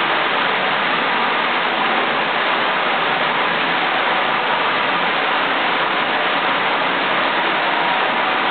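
Water rushing steadily from a burst pipe inside the toilet stalls, gushing out under the partitions and across the tiled floor.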